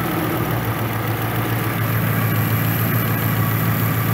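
Triumph Stag's 3.0-litre V8 idling steadily, fully warmed up, while the distributor is turned to set the ignition timing.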